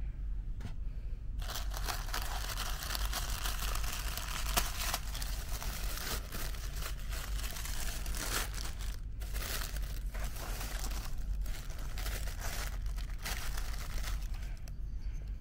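Paper packaging being unwrapped and handled: crinkling and rustling that starts about a second and a half in, with brief pauses, and stops just before the end.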